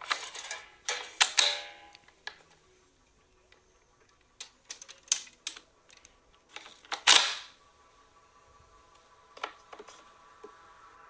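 Plastic clicks and clatter from a Play-Doh Transformers Autobot Workshop playset being handled and its mode changed: a busy run of clicks in the first two seconds, scattered sharp clicks after, and the loudest clatter about seven seconds in.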